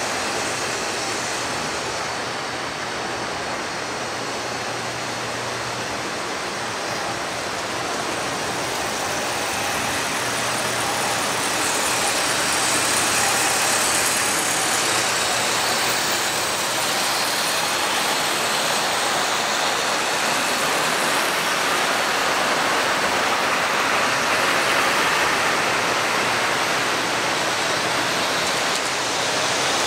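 Model trains running on three-rail track: a steady rolling rush and rumble that grows a little louder from about ten seconds in as a train passes close by.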